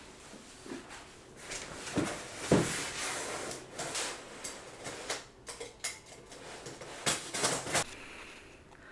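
Cardboard shipping boxes being handled and set down, with two solid thumps about two seconds in, then cardboard scraping and rustling, and a run of light clicks and taps near the end.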